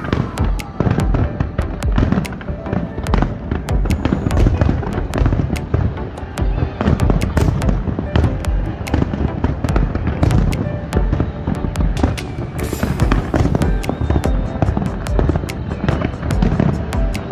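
Fireworks display: a dense, continuous barrage of bangs and crackles from many shells bursting, with music playing underneath. A falling whistle fades out in the first moment.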